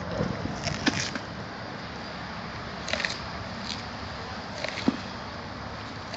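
A dog chewing and tearing at a raw deer carcass: irregular short clicks and cracks in a few clusters, near the start, around three seconds and again near five seconds, over a steady background noise.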